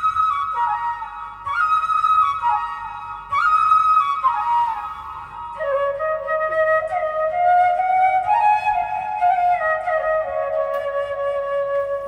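Background music: a slow solo melody in short phrases that step downward, settling into lower, longer held notes about halfway through.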